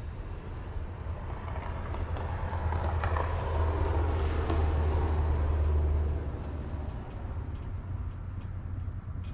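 A vehicle passing on a snowy road: a noisy swell that builds, peaks midway and fades over about five seconds, over a steady low rumble.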